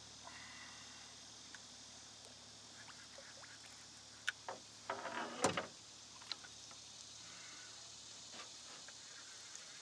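Quiet open-air ambience on a boat, broken about halfway through by a short cluster of clicks and knocks from fishing gear being handled.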